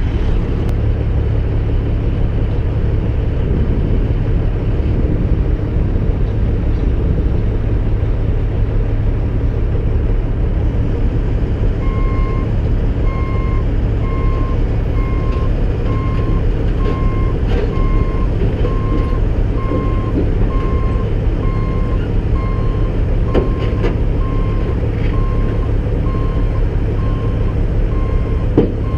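CAT 313 excavator's diesel engine running steadily under load while it is driven off the trailer. From about twelve seconds in, its travel alarm beeps about once a second.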